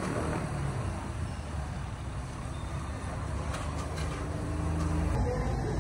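Steady low rumble of road traffic around a street food stall, with a metal spatula scraping and clinking against the frying pan a few times.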